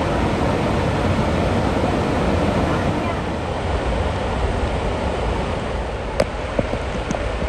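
Steady rush of fast-flowing stream water pouring over and around rocks, with a couple of sharp clicks about six seconds in.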